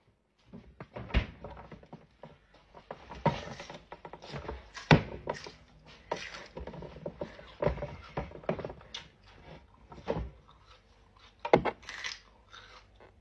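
Plastic hinged-lid vegetable chopper being pressed down on a potato: a string of irregular plastic clacks and knocks, the loudest about a second in, about five seconds in and near the end.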